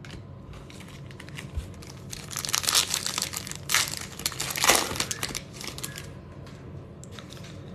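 Plastic foil wrapper of a 2022 Bowman baseball card pack crinkling as it is handled and torn open, in irregular crackles that are loudest around the middle.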